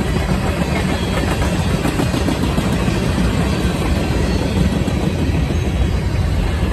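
Freight train's cars rolling past: tank cars, covered hoppers and boxcars, their steel wheels on the rails making a steady rumble.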